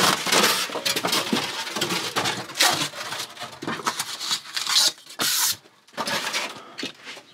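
Protective packaging being torn and pulled off a boxed fridge: irregular bursts of tearing and rustling, with a short pause near the end.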